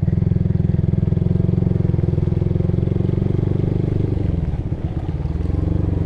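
Honda Supra GTR150's single-cylinder engine running under way through an aftermarket Tridente exhaust, steady, then easing off about four seconds in and picking up again near the end.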